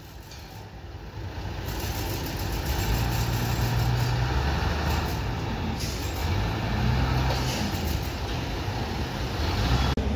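Wheel loader's diesel engine running and getting louder over the first few seconds, revving up and down a few times as the machine works.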